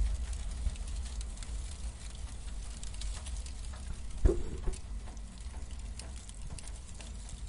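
Fire sound effect: a low rumble under dense crackling, with one sudden hit about four seconds in.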